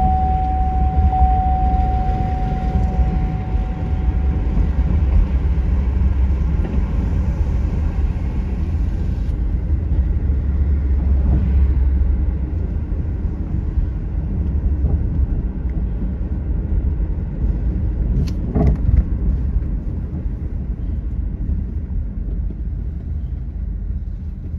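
A car driving on city streets: a steady low rumble of engine and road noise. A thin steady tone fades out about four seconds in, and a brief sharp click comes about eighteen seconds in.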